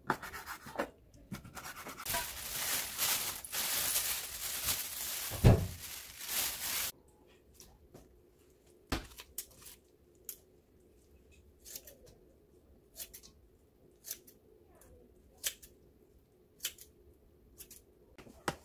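A few seconds of steady rushing noise with one thump, cut off suddenly. Then single sharp snips of kitchen scissors about once a second as chives are cut into a stainless steel colander.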